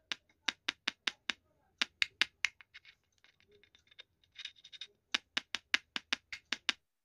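Fingers tapping and scratching at a small electret microphone capsule: quick runs of sharp taps, about four or five a second, with a short stretch of soft scratching in the middle.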